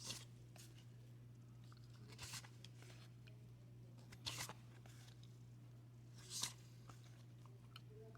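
Trading cards being handled: four brief papery swishes, about two seconds apart, as cards are slid off the stack one at a time, over a faint steady low hum.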